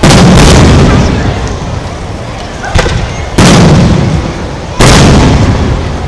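Aerial firework shells bursting: a loud boom at the start, a weaker one near three seconds, then two more loud booms about a second and a half apart. Each boom dies away over about a second in a long echo.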